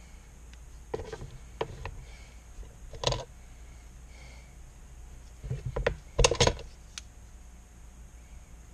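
Workbench handling noises: scattered light knocks and clicks as an epoxy mixing stick, an acrylic handle scale and a steel knife blade are set down on and picked up from a cutting mat, with the loudest cluster of knocks a little past halfway. A steady low hum runs underneath.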